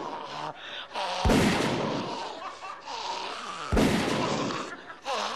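A man imitating gunshots with his voice into a stage microphone: two loud bangs about two and a half seconds apart, each trailing off over about a second.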